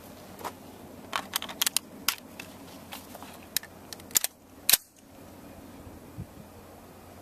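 Sharp metallic clicks and clacks of an AR-15 rifle being handled and readied: a quick run of clicks, then a few more, with the loudest clack just under five seconds in.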